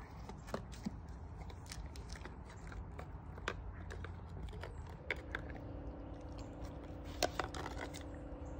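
A dog gnawing on a hard chew stick: irregular sharp clicks and crunches of teeth on the stick. A steady low hum comes in about five seconds in.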